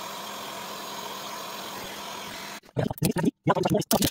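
Heat gun blowing steadily, a fan hiss with a faint hum, cutting off a little over halfway through. Then a run of irregular scraping sounds as the peeling clear coat is worked off the Audio 20 head unit's display.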